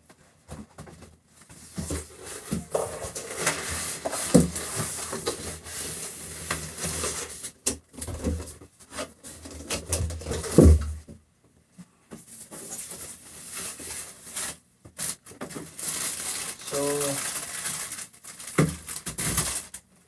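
Plastic bagging and cardboard packaging being rustled, crinkled and pulled off a dehumidifier as it is unpacked, in stops and starts, with a heavy thump about halfway through.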